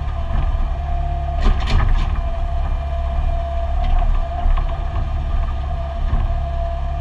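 Excavator's diesel engine running under load with a steady high hydraulic whine, heard from inside the operator's cab as the boom and bucket dig. A few sharp metallic clanks come about a second and a half in, with a fainter one later.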